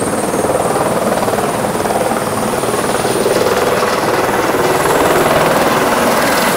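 Helicopter engine and rotors running: a loud, steady noise that grows a little louder about three seconds in.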